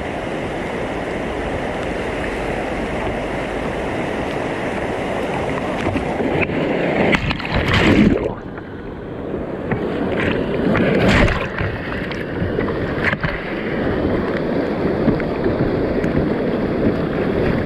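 A kayak running river rapids: a steady rush of churning whitewater. Waves break over the bow with heavy splashes about seven to eight seconds in and again around eleven seconds. After the first splash the sound is duller, as the water swamps the camera.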